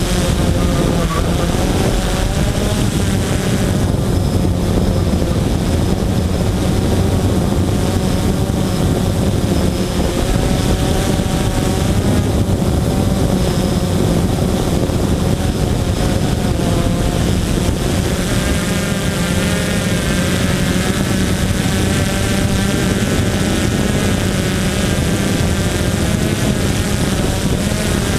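Blade 350 QX2 quadcopter's brushless motors and propellers running, heard through the GoPro mounted on the drone. The motor tones drift up and down with the throttle, and a higher whine joins about eighteen seconds in.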